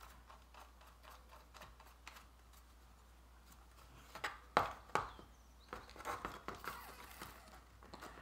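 Thin wooden kit pieces clicking and tapping as they are fitted together by hand. There are two sharper clicks about halfway through, then a run of lighter clicks and handling rustle.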